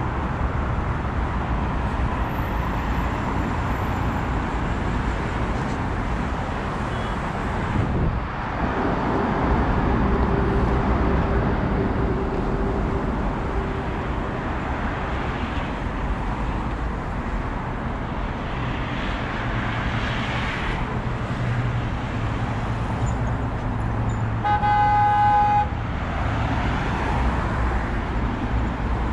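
Road traffic passing steadily, with a car horn sounding once for about a second near the end.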